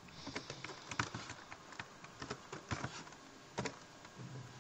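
Keys on a computer keyboard being typed, slow, irregular single key clicks.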